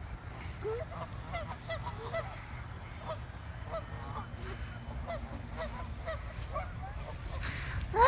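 A flock of Canada geese honking: many short calls from different birds, scattered and overlapping throughout, over a steady low rumble.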